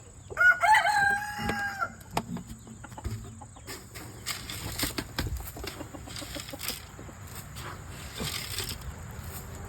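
Chickens in a coop: one long, drawn-out call of over a second, starting about half a second in, then scuffling and rustling of birds and bedding as broody hens are lifted off the nest.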